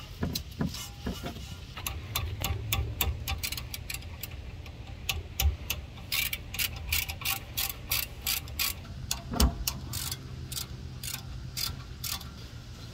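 Hand socket ratchet clicking through a long run of quick strokes as a bolt on a rear brake caliper is turned, the clicks densest about halfway through.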